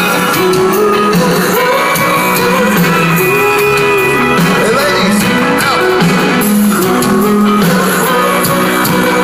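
A rock band playing live with a singer, loud and steady, recorded from among the audience in a large hall.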